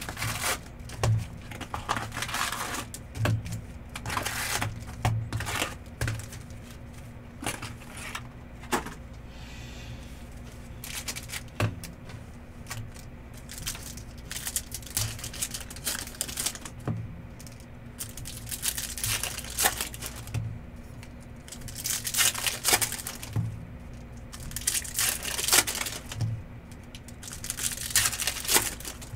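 Packs of trading cards being torn open and the cards handled: foil wrappers crinkling and tearing in bursts, louder in the second half, with clicks and light knocks on the table over a steady low hum.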